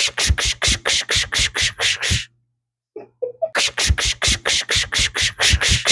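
A person imitating an ice-carving knife sawing through ice with their mouth: quick, even rasping strokes, about four or five a second, that stop for about a second a little over two seconds in and then start again.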